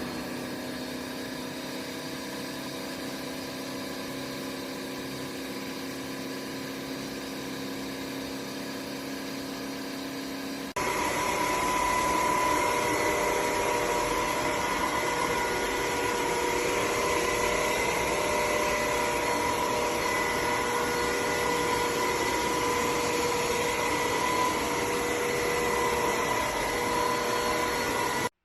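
Dibea DC22 wet-dry cordless vacuum cleaner running with a steady motor hum and whine. About eleven seconds in it jumps suddenly to a louder, higher-powered setting, then cuts off abruptly near the end.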